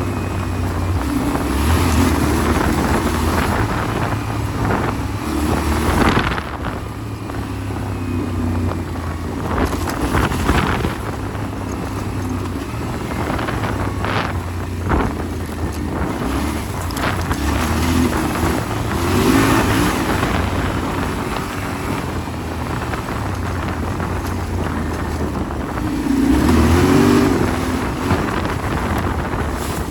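Yamaha Ténéré 700's 689 cc parallel-twin engine running and revving on an off-road ride, its pitch rising and falling as the throttle opens and closes and loudest late on. Wind buffets the microphone, and scattered knocks come through.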